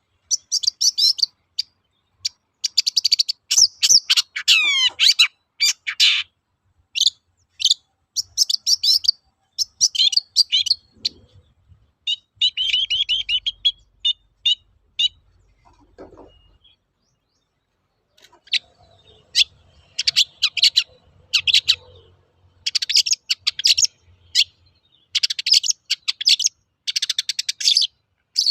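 Long-tailed shrike (cendet) singing in quick bursts of high, chattering and mimicked notes, with one long falling whistle about four seconds in and a pause of about two seconds past the middle.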